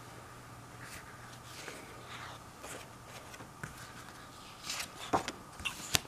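Sheets of paper being handled on a tabletop: soft rustles and sliding scrapes, with a louder scrape about five seconds in and a sharp tap right at the end.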